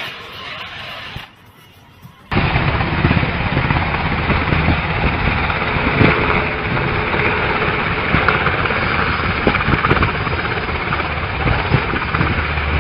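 Helicopter flying low overhead: a loud, steady rotor chop and engine noise with fast pulsing, which cuts in suddenly about two seconds in after a short quieter stretch.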